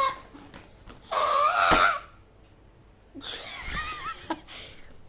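A person groaning and straining with effort while forcing a stiff Nerf Stinger SD-1 toy blaster: a short grunt, then a loud strained cry of about a second with a sharp knock near its end, then a quieter wavering moan about three seconds in.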